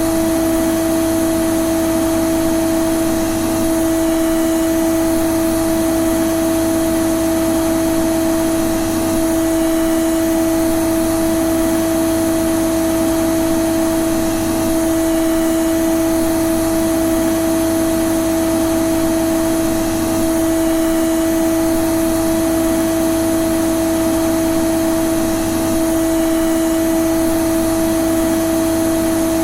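Vacuum cleaner running steadily, its motor giving a constant hum over an even rush of air.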